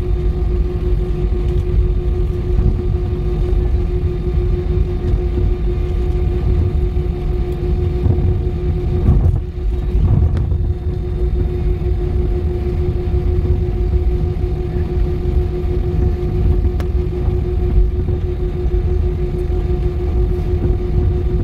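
Airliner cabin noise while taxiing: the jet engines' steady whine over a low rumble, heard through the cabin.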